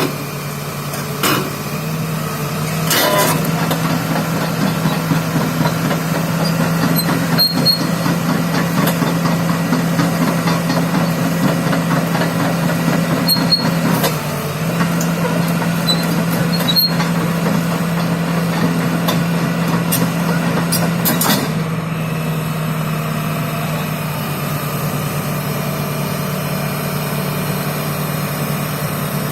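Hitachi 330H hydraulic excavator's diesel engine running with a steady hum. It works harder and noisier through most of the stretch, with a few sharp knocks, then eases to a steadier run about two-thirds of the way in.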